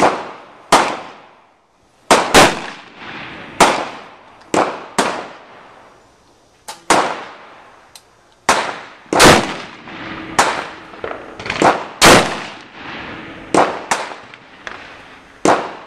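Gunshots on an outdoor shooting range: about twenty sharp cracks at irregular intervals, sometimes two in quick succession, each trailing off in an echo.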